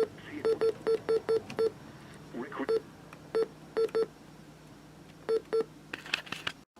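About a dozen short, identical electronic beeps at irregular spacing, like the key-press beeps of a device's buttons being pressed one after another.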